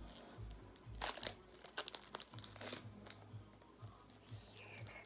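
Foil wrapper of a Pokémon card booster pack crinkling and tearing as it is opened by hand, in several short, crisp rustles, the loudest about a second in.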